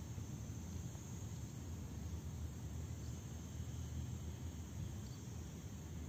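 Outdoor ambience: a steady low rumble, with a faint, steady, high insect trill from crickets behind it.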